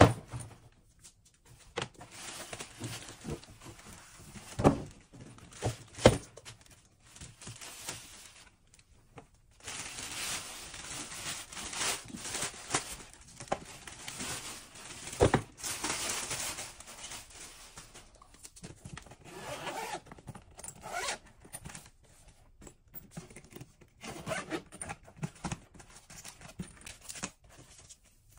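Paper and plastic packaging rustling, crinkling and tearing as a carry-on suitcase is unwrapped by hand, with a few sharp knocks in between.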